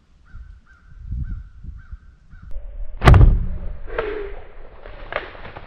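A bow being shot at a whitetail buck: one sharp, loud report about three seconds in as the arrow is released and strikes the deer in the shoulder, then fades.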